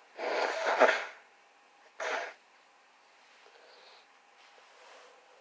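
A woman with a head cold sneezing: one loud sneeze just after the start, then a shorter, weaker second burst about two seconds in.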